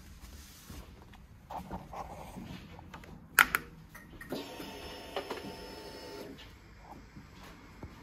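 A sharp click, then the motorcycle's electric fuel pump whirring steadily for about two seconds as it primes on ignition-on.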